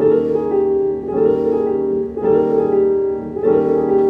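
Piano playing a repeated worship-style chord movement in F-sharp: four chords struck about a second apart, each with a quick slurred note leading into it.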